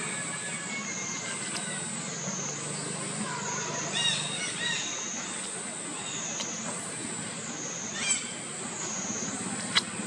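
Outdoor ambience: a high-pitched drone that wavers about once a second, with a few short bird chirps about four and eight seconds in and a sharp click near the end.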